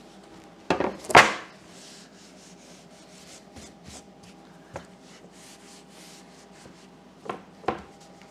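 A loud knock and swish about a second in as a carpet-covered plywood board is flipped over onto a metal stand. Then gloved hands rub and press the indoor-outdoor carpet flat onto the spray-glued board, making a faint, steady scratchy rubbing with a few light pats near the end.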